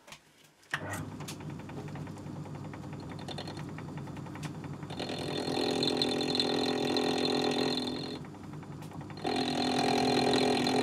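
Myford ML7 metalworking lathe starting up and running, then a high-speed steel cutter taking an interrupted cut across the corners of a square mild steel bar. There are two spells of cutting, from about five to eight seconds and again near the end, each louder and higher-pitched than the lathe running alone.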